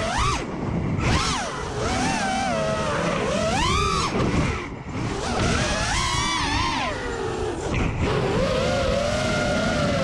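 FPV freestyle quadcopter's brushless motors and propellers whining, the pitch sweeping up and down quickly with throttle over a steady rush of wind noise on the onboard microphone. The sound dips briefly just before halfway and holds a steadier pitch near the end.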